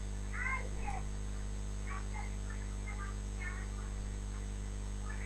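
Steady low electrical mains hum, with a few faint, short high chirps about half a second in and again between two and three and a half seconds in.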